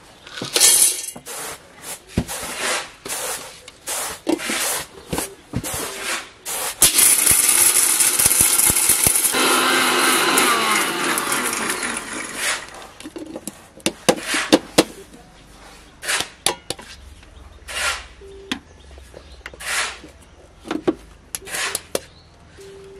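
Havells mixer grinder running for about five seconds, grinding dried dye material in its steel jar; it falls in pitch as it winds down. The rest is scattered knocks and clatter from handling the steel jar and its lid.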